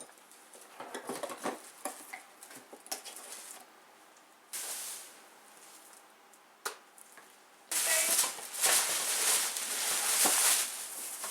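Shopping bag and packaging being handled and rustled: scattered clicks and short rustles, then louder continuous crinkling for about three seconds starting near the eight-second mark.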